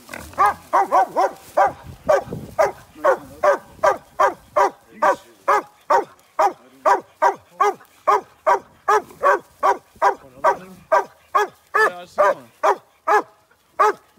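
Hog-hunting dog barking steadily and rapidly, about two to three barks a second.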